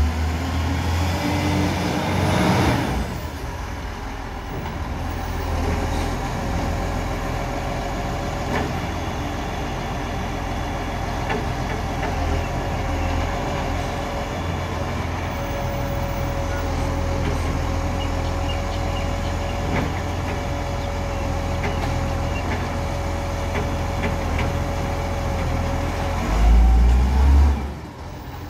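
Side-loading garbage truck's diesel engine running at low speed, with a short hiss of air brakes about three seconds in. A steady whine runs through the middle while the truck stands, and the engine surges louder near the end as it pulls away.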